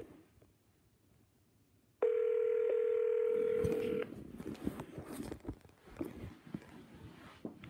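Ringback tone of an outgoing phone call on speaker: one steady ring about two seconds in, lasting about two seconds, then faint rustling and tapping as the iPad is handled.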